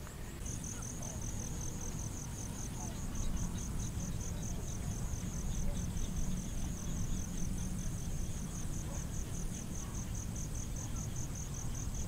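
An insect chirping in a steady high-pitched pulse, about five chirps a second, starting about half a second in, over a low steady rumble.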